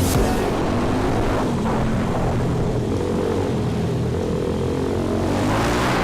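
Single-cylinder four-stroke engine of an MRF 140 SM pitbike running with a steady drone that grows brighter near the end.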